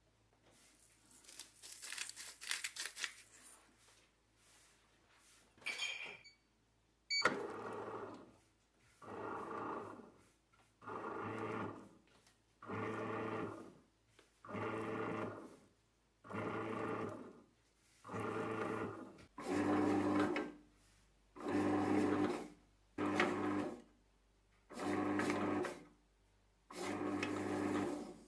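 Granulated sugar rustling as it pours into a bread maker pan, then a few clicks and short beeps about six seconds in. After that the bread maker's kneading motor hums in bursts of about a second with short pauses between them as the paddle mixes the dough.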